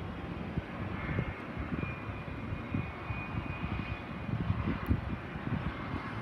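Business jet on approach to land, heard as a steady rumble of engine noise with a faint high whine in the middle.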